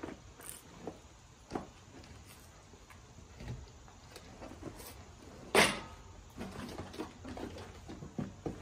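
Handling sounds from fitting a lawn sweeper's fabric hopper bag onto its frame: rustling of the bag with scattered knocks and clicks of the frame parts, and one sharp, louder knock about five and a half seconds in.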